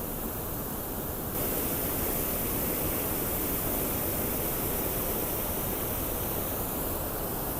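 Waterfall: a steady rush of falling water that steps up suddenly, louder and brighter, about a second and a half in.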